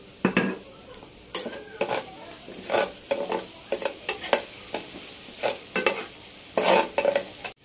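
A metal spatula stirring and scraping chopped onions frying in hot oil in a wok. There are irregular scraping strokes over a steady sizzle.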